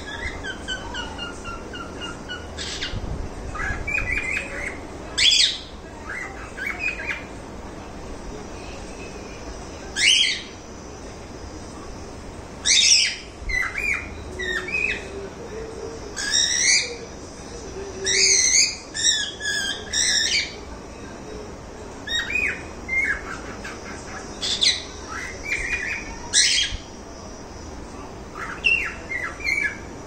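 Caged cockatiels chirping and calling: short, high chirps and whistles in scattered bursts every second or two, with a quick run of rapid chirps about halfway through.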